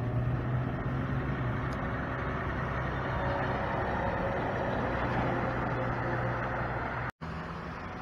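Diesel semi tractor pulling a tanker trailer driving past close by: a steady engine drone with tyre and road noise that swells as it goes by. The sound drops out for an instant about seven seconds in, after which lighter passing traffic carries on.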